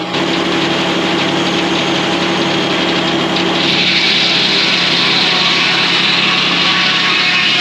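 Diesel-powered circle sawmill running steadily. About halfway through, a louder, harsher hiss comes in and holds, as the blade cuts through a hemlock log.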